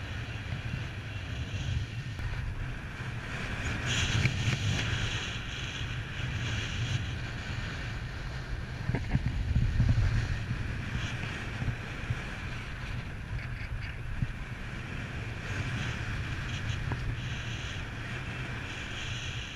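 The engine of a model aircraft in flight, droning and swelling louder then fading several times as it passes, with wind rumbling on the microphone.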